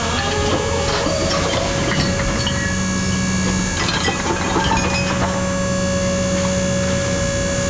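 Heavy engine running steadily, with scattered knocks, clinks and crackling of debris being moved and dumped.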